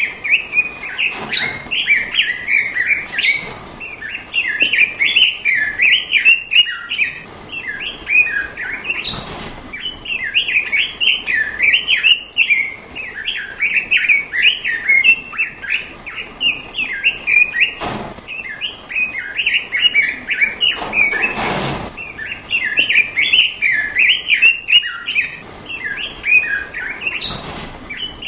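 A songbird singing a continuous, rapid, chattering song of high chirps and short trills, with only brief gaps. A few short noises cut across it now and then.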